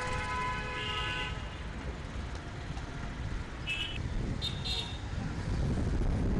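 Road traffic with vehicle horns: a long honk that stops about a second in, then two short high-pitched toots a little before the end, over a steady rumble of passing traffic.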